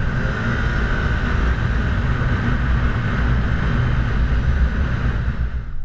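Side-by-side off-road vehicle driving at speed on a dry gravel road, heard from on board: a steady engine drone with the rumble of tyres on gravel.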